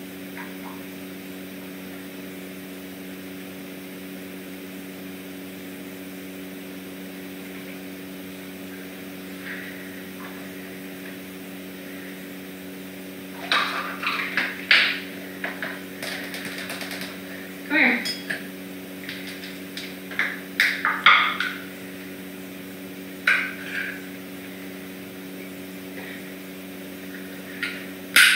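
A steady low electrical hum throughout; from about halfway in, bowls and small dishes clink and clatter in short irregular bursts as feeding bowls are handled, with a sharper clack at the very end.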